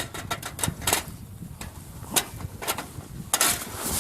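Irregular crunches and knocks of someone clambering and stepping through deep snow, with a longer brushing crunch near the end.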